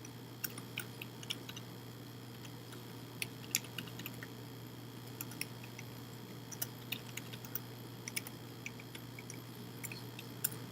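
Faint computer keyboard typing: irregular light key clicks, a few a second, over a steady low electrical hum.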